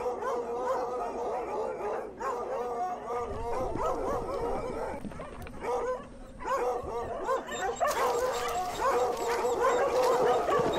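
A pack of dogs baying and yelping, many cries overlapping, growing louder in the last few seconds.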